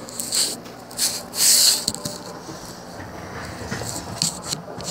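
A few short hissing bursts over a faint steady hum, the loudest about a second and a half in.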